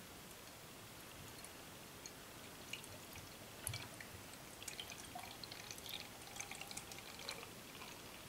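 Dark ale poured slowly from a glass bottle into a tilted glass: a faint trickle with small fizzing crackles from the foam, which thicken from about halfway through.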